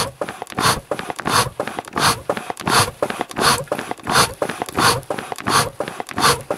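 Hand-pumped bellows on a homemade wood gasifier, worked in a steady rhythm of about three strokes every two seconds. The pumping forces air through the burning wood to bring the gasifier up to wood-gas temperature.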